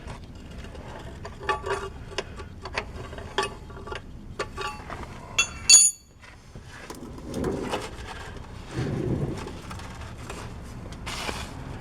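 Wrench clicking and metal clinking while the nut on the transmission's shift cable lever arm is worked loose. There is a sharp ringing metal clink about five and a half seconds in, then scraping and rubbing.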